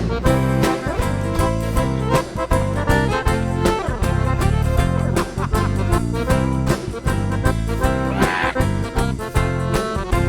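Instrumental gaucho dance music led by accordion, with a steady beat. A short, bright higher sound stands out about eight seconds in.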